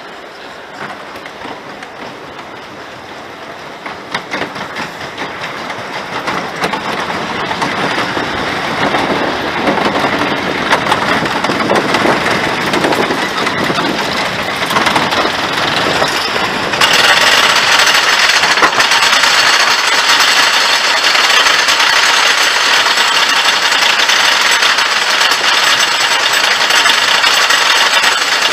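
Lightning Racer wooden roller coaster train rolling over the wooden track and getting steadily louder. About two-thirds of the way in it catches the lift-hill chain, and a loud, even clatter of the chain begins and continues as the train climbs.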